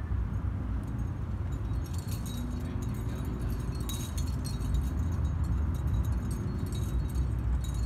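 Carabiners and cams on a climber's trad rack jangling and clinking as she moves, in scattered light clicks from about two seconds in, over a steady low rumble.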